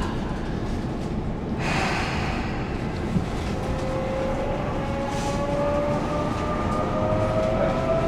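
Electric subway train running through the station with a steady rumble, its motor whine rising slowly in pitch in the second half as the train picks up speed.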